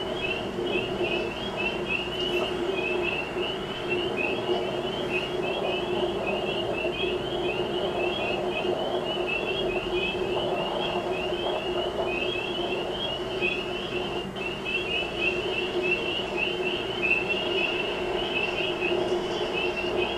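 Dense chorus of small frogs: many short, high, upward-sliding peeps overlapping without pause, over a steady low hum of traffic.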